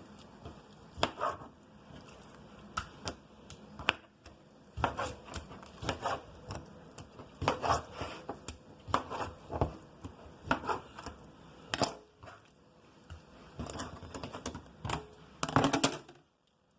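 Knife cutting raw chicken breast on a cutting board: irregular knocks of the blade striking the board, about one a second, with a quick run of strikes near the end.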